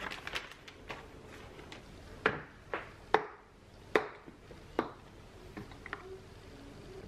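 Snap-lock tabs on the lid of a glass food storage container being unclipped: about five sharp plastic clicks, roughly half a second apart, with lighter handling ticks before them.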